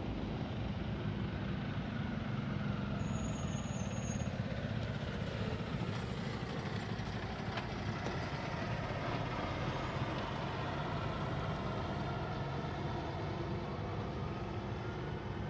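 Steady low engine rumble, with a faint tone sliding slowly down and then back up.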